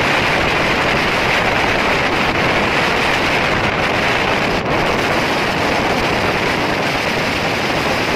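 Loud, steady rush of wind and wheel-on-rail noise from a train running at speed, heard from its open door, with wind buffeting the microphone.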